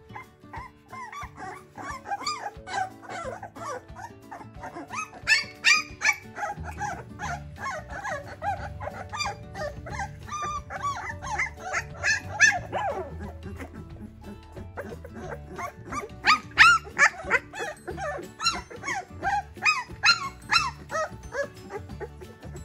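A litter of 17-day-old Labrador retriever puppies squeaking, whimpering and giving little yelps, many short calls overlapping, busiest twice in the middle stretch, over background music.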